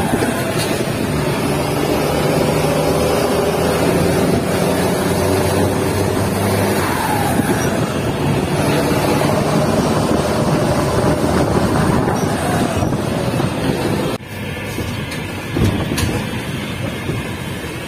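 Volvo dump truck's diesel engine running under way, heard from inside the cab with road and cab noise over a dirt road. The engine note shifts pitch a couple of times, and the sound drops abruptly about three-quarters of the way through.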